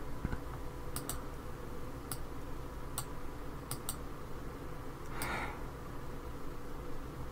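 Computer mouse clicks: half a dozen sharp clicks, a couple of them in quick pairs, over a faint steady background hum.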